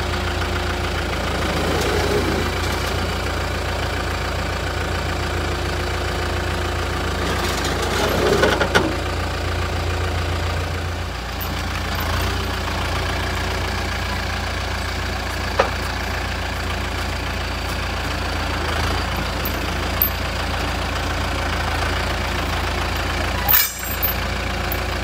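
Forklift engine idling steadily, with a few short metal clinks as the lifting chain is handled, the loudest near the end.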